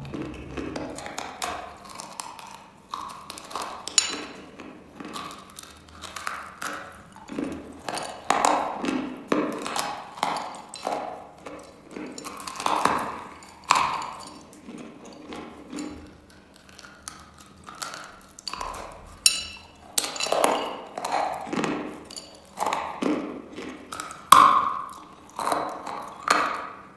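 Dry chalk being bitten and chewed: sharp cracks as pieces snap off between the teeth, with gritty crunching between them, coming irregularly throughout.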